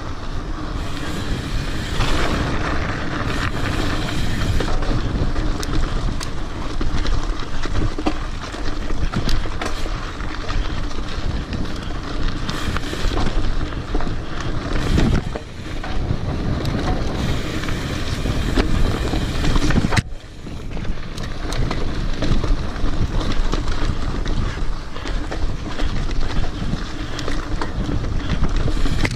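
Wind rushing over the microphone of a mountain bike's handlebar camera, with the rattle and knocks of the bike and its tyres riding fast over rock and a rough dirt trail. The noise drops out briefly about two-thirds of the way through.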